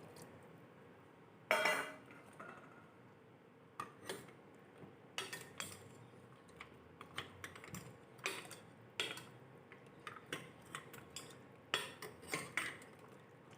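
A metal utensil clinking and tapping against a metal cooking pot, irregular short knocks as the soup is handled. The loudest clatter comes about a second and a half in.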